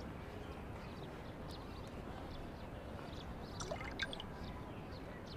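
Faint, steady background ambience with no distinct source, broken by a few soft ticks about three and a half to four seconds in.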